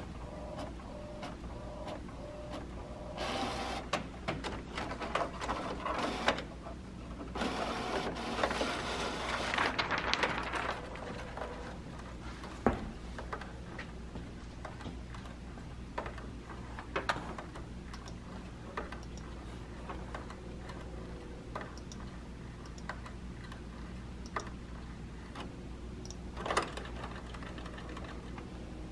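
Canon PRO-300 inkjet photo printer working: a steady low hum, several bursts of mechanical whirring in the first ten seconds, then scattered clicks.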